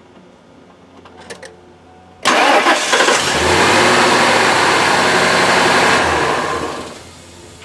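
1998 Ford Expedition's V8 engine cranked and started, catching about two seconds in and running loudly for several seconds before dying down near the end. It is the first start after an oil change with an empty new filter, run to build up oil pressure and check for leaks.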